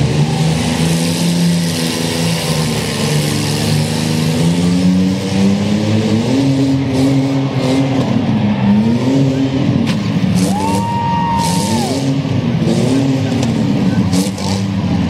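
Several demolition-derby minivan engines revving up and down as the vans maneuver and push against each other on a dirt arena floor. A brief high-pitched squeal rises, holds and falls away about ten seconds in, and a few sharp knocks sound near the end.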